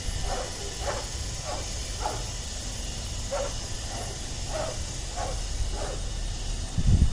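A dog barking repeatedly, about one and a half barks a second with a short pause partway through, over a steady background hiss. A low rumble comes in near the end.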